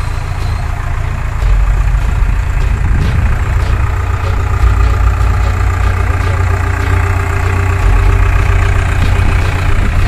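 Hyundai Robex mini excavator's diesel engine running steadily with a deep hum, getting louder about a second and a half in and again near the end as the boom and bucket are worked.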